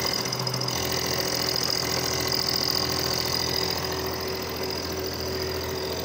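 Manual milling machine running steadily, a large end mill slotting out a block of aluminium; a constant hum with a high whine over it.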